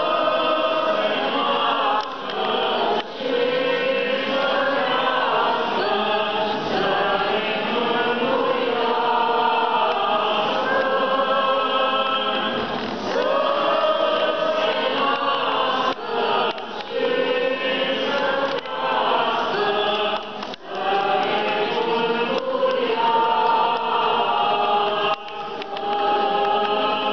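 Orthodox church choir singing a liturgical chant, with long held notes that move slowly in pitch.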